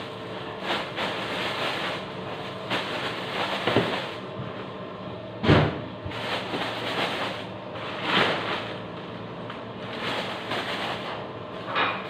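Plastic bag crinkling and leafy greens rustling as vegetables are handled and wrapped, in irregular swishes, the loudest about five and a half seconds in.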